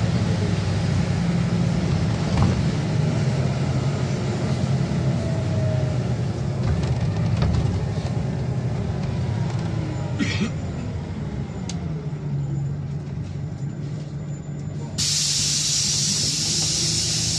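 Scania OmniLink city bus heard from inside the cabin while driving: a steady engine and drivetrain drone with a whine that rises and falls in pitch. A loud steady hiss sets in suddenly near the end.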